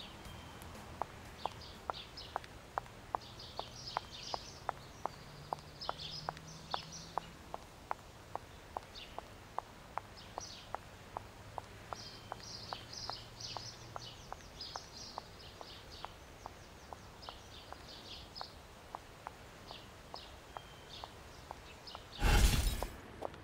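Footsteps walking briskly on pavement, sharp clicks at about three a second that slowly fade as the walker moves away, with small birds chirping. Near the end a brief loud burst of noise cuts across everything.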